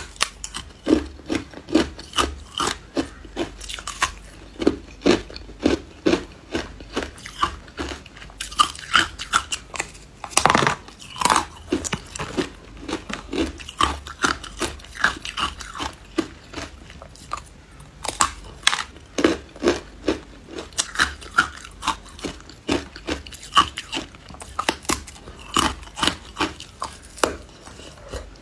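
Hard ice being bitten and chewed, cracking between the teeth in short, sharp crunches, a few a second, with one louder, longer crunch about ten seconds in.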